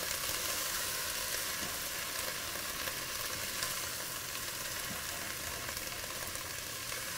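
Chopped onion, celery, carrots and garlic sautéing in oil in a pot: a steady sizzle, with soft stirring from a silicone spatula.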